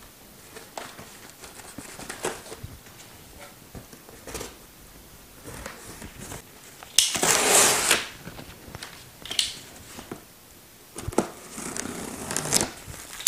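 Packing tape on a cardboard shipping box being slit with a folding knife and the box being opened: small scrapes and clicks, a loud rasp lasting about a second about halfway through, and more scraping of tape and cardboard flaps near the end.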